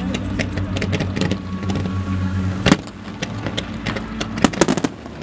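Aerial fireworks bursting: a run of crackles and pops, a sharp bang about two and a half seconds in, and a cluster of loud bangs near the end. A low steady hum underneath stops at the first big bang.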